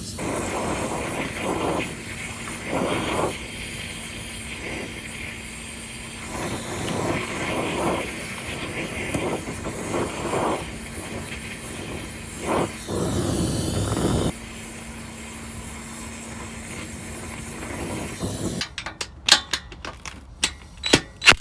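Gas torch hissing steadily as it heats a seized bolt, swelling and easing several times. Near the end it gives way to a quick run of sharp clicks or knocks.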